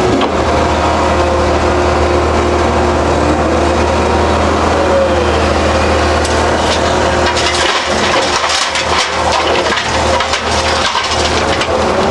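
John Deere 790D LC excavator's diesel engine running steadily under hydraulic load, heard from inside the cab. From about seven seconds in, stones and gravel clatter and crackle for several seconds as a load is dumped on the pile.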